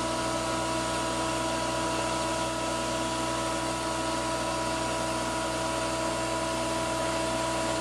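Bee vacuum motor running steadily, a constant drone with a steady whine, its hose nozzle drawing honeybees off the comb at deliberately gentle suction.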